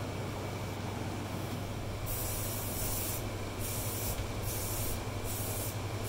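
Aerosol spray-paint can spraying in five short hissing bursts, starting about two seconds in. Before that there is only a faint rubbing over a low steady hum, as sawdust is brushed off wood by hand.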